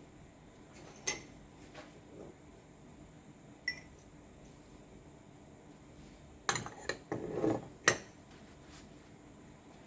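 Metal parts of a demolition hammer clinking and knocking as they are handled and set down on a hard surface: a single knock about a second in, a short ringing clink near four seconds, then a quick run of knocks and clinks about two seconds long near the end, the last one the loudest.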